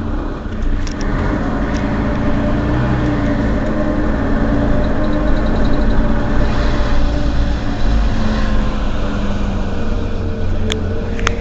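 Mercedes-Benz Citaro Facelift city bus idling at a stop, a steady engine hum with a faint whine that slowly falls in pitch. A short run of light ticks comes about five seconds in, and two sharp clicks near the end.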